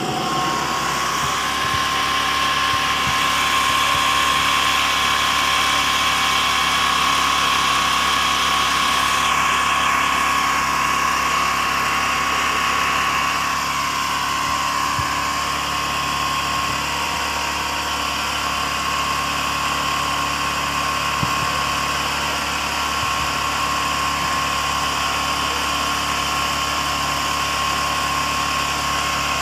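An engine running steadily, with a thin, constant whine over it.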